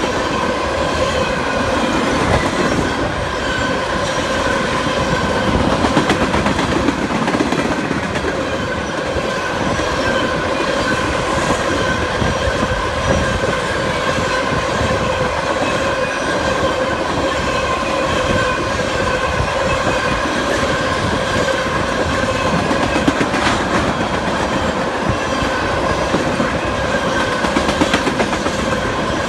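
Empty freight tank cars rolling past on steel wheels: a steady rumble of wheels on rail with a continuous high ringing squeal, and now and then a sharper clack over the rail joints.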